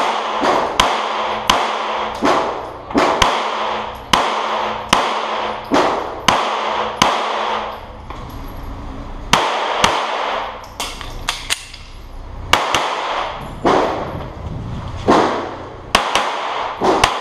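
Rapid pistol fire: many shots, mostly in quick pairs, two to three a second, with a pause of about two seconds near the middle. Each shot rings on in the echo of an indoor range.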